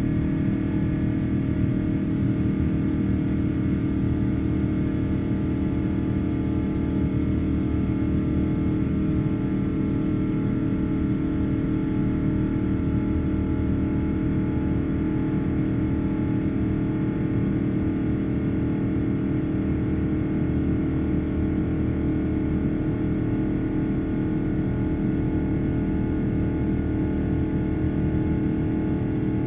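Jet airliner in flight heard from inside the passenger cabin: a steady engine and airflow rumble with several held humming tones from the engines over it.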